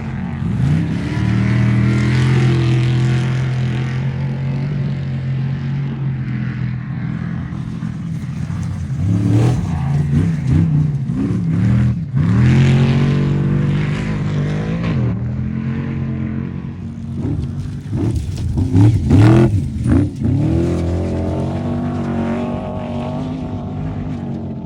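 Off-road race vehicle engines running at a steady low note, with several revs that rise and fall, the sharpest ones about two-thirds of the way through.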